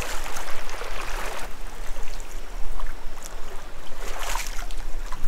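Someone wading across a river: water splashing and sloshing around the legs in surges, over the flow of the river, with the sound cutting off suddenly at the end.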